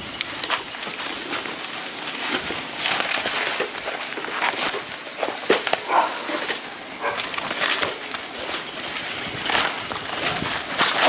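Old roof shingles being torn off: irregular scraping, tearing and clattering of shingles and nails being pried up and dragged across the roof deck.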